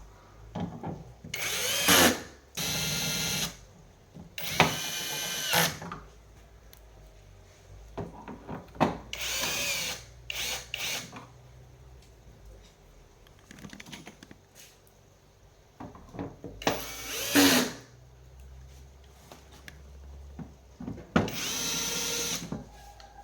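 A small cordless drill-driver running in about six short bursts of a second or so each, a whining motor sound, with small clicks and knocks of handling between the bursts.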